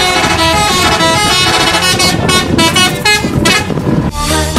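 A coach's multi-tone musical air horns playing a quick tune of changing notes, some of them short and clipped.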